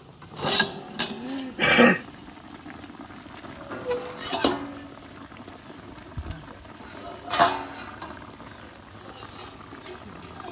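Metal spatula scraping and clanking against a stainless-steel wok and the upturned steel basin used as its lid as the lid is pried up and lifted, several ringing metal clanks. The braise simmers in the wok underneath.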